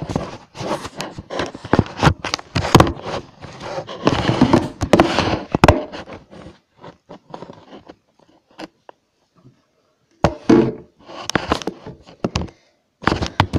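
Handling noise from a camera being moved and propped into position: a run of knocks, thuds and scrapes right against its microphone, a quieter stretch in the middle, then more knocks about ten seconds in.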